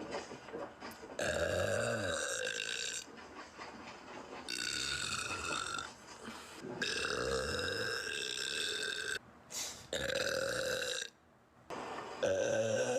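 A woman burping: a string of about five long, drawn-out belches in a row, each one to two seconds long, with short pauses between them.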